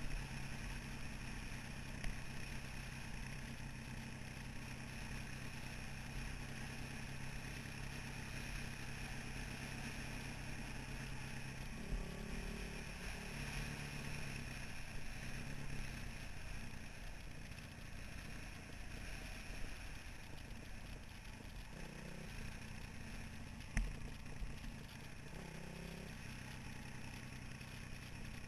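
Dirt bike's single-cylinder four-stroke engine, a 2003 Honda CRF450R, running at a steady pace along a trail, its note changing a few times from about halfway on. A few sharp knocks cut in over it.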